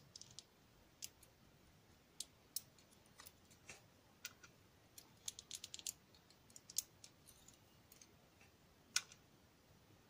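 Faint, irregular small metallic clicks and ticks of steel tweezers against a Yale Superior dimple-lock cylinder as its driver pins are pulled out one by one and set down in a pin tray. There is a quick run of clicks about five seconds in and a sharper single click near nine seconds.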